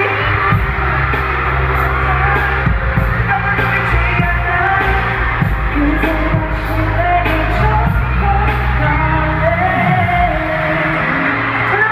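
Live amplified pop music from a concert: a song with singing over a heavy bass beat, the bass dropping away about ten seconds in.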